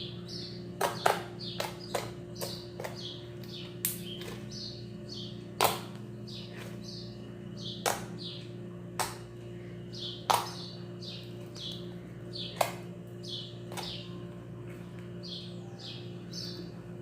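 Homemade slime with styrofoam beads being squeezed and pressed by hand: sharp clicking pops every second or two, with short squelching squeaks between them, over a steady low hum.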